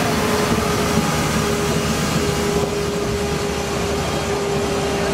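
Steady hum of vehicles at slow speed: a tram rolling around a curve and a street-sweeper truck running nearby, with a held whine throughout.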